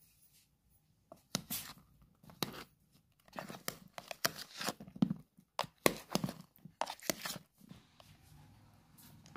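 Irregular scraping and rustling handling noises: a dozen or so sharp strokes, most of them between about one and seven and a half seconds in, then only a faint hum.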